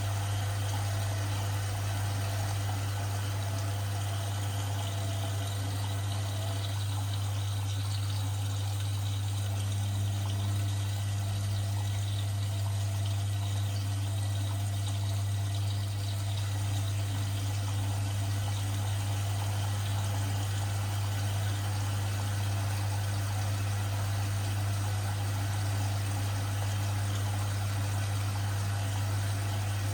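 Washing machine running with a steady low hum and water moving inside the drum.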